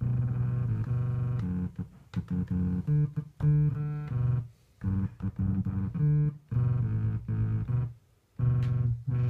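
Moog Werkstatt-Ø1 analog synthesizer playing a low monophonic line of short notes that keep changing pitch, with brief breaks between phrases.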